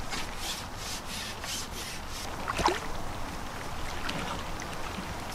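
A long carbon fishing pole rubbing as it is drawn back hand over hand, a rhythmic swishing about three strokes a second that stops after about two seconds. A single sharp sound with a falling squeak stands out about two and a half seconds in.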